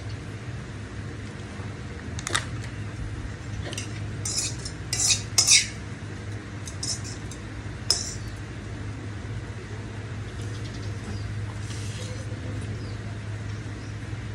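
Cutlery clinking and scraping against a plate while eating noodles: a run of sharp clinks about two to eight seconds in, the loudest around the middle, over a steady low hum.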